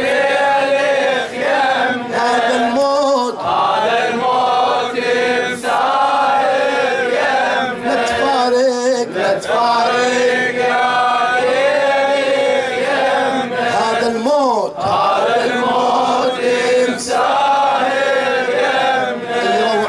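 Men's voices chanting the refrain of a Shia Muharram mourning lament in slow melodic phrases a few seconds long, with a falling vocal glide about two-thirds of the way through.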